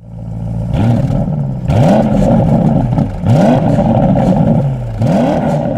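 A 4.0-litre V8 revved four times through a sports exhaust: each blip of the throttle rises quickly in pitch and falls back to idle.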